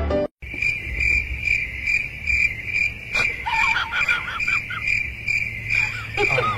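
Crickets chirping in a steady, evenly pulsing high trill. It begins about half a second in, after an abrupt cut from music. Short wavering whistle-like calls rise over it about three seconds in and again near the end.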